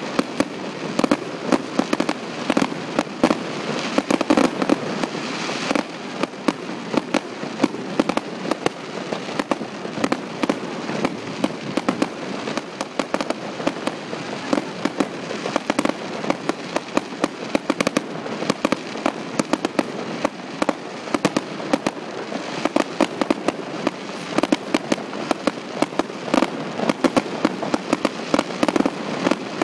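Fireworks display: a continuous barrage of sharp bangs and crackling as small shells fire and burst in quick succession, several reports a second.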